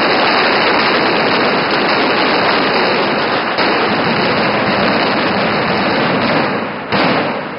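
Mascletà firecrackers going off in a dense barrage, so fast the bangs blend into one continuous noise. It eases off near the end, with one last sharp bang.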